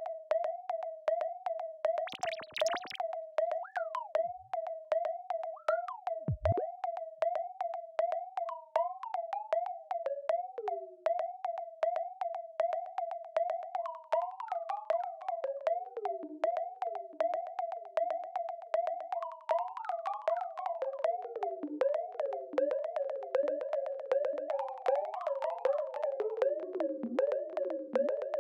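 Synthesized robotic sci-fi sound effect: a pulsing, wavering electronic tone over rapid even ticking, with a short burst of hiss about two seconds in and a deep downward sweep about six seconds in. From about halfway on, falling bleeps and chirps pile up over the pulse.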